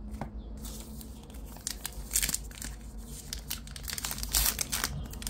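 Baseball card pack wrapper crinkling and crackling as it is torn open by hand, in uneven bursts that grow busier about two seconds in and again near the end.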